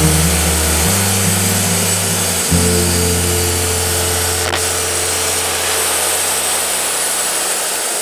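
Wood-Mizer LT40 Wide hydraulic sawmill running with a steady, loud noise. Low hums underneath change pitch abruptly about one and two and a half seconds in, then fade away.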